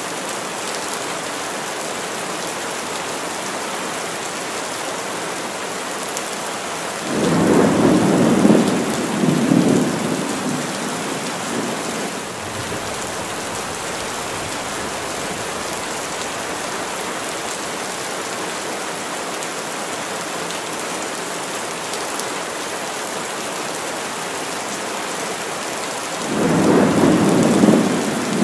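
Heavy rain falling steadily on the trees, with two rolls of thunder: one about seven seconds in that rumbles for a few seconds, and another starting near the end.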